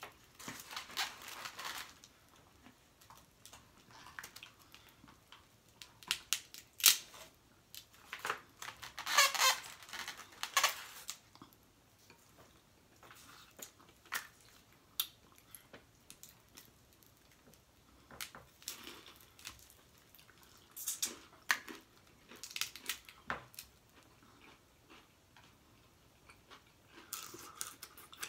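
Blue crab shells being cracked, snapped and pulled apart by hand, in irregular bursts of crackling and sharp snaps, the sharpest snap about seven seconds in.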